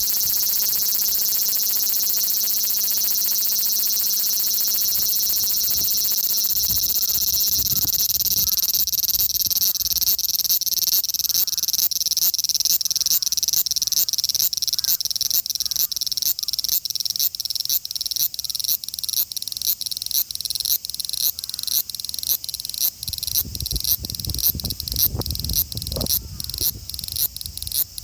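Male large brown cicada (Graptopsaltria nigrofuscata) singing: a loud, high sizzling buzz. It is steady at first, then from about a third of the way in breaks into regular pulses at about two to three a second. Some low rumbling comes in near the end.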